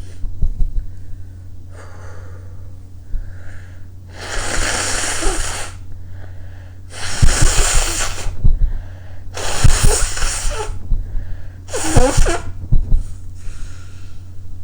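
A person sneezing loudly four times, roughly every two and a half seconds, with quieter breaths between the sneezes.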